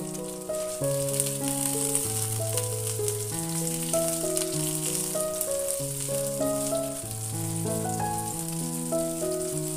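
Food sizzling and crackling as it fries in hot oil in a pan, a steady spitting hiss, under background music with a simple stepping melody.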